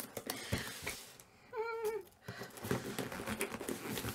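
A cardboard box being worked open by hand: scattered scraping and rustling clicks, with a short, wavering, strained vocal whine about a second and a half in.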